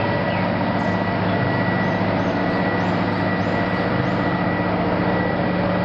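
Recorded heavy truck engine running steadily at a constant pitch, starting abruptly.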